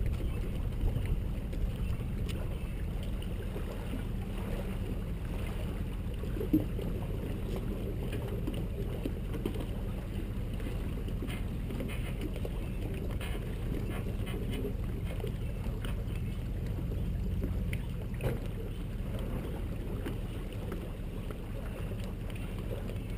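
Tow vehicle's engine running at low speed as it backs a boat trailer down a launch ramp into the water: a steady low hum, with one sharp knock about six and a half seconds in.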